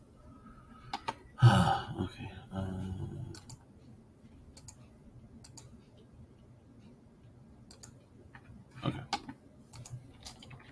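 Scattered computer mouse clicks and keyboard taps, with a louder, brief wordless vocal sound about a second and a half in.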